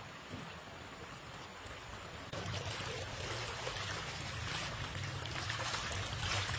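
Steady rushing water noise that turns suddenly louder and fuller about two seconds in, with a low rumble underneath.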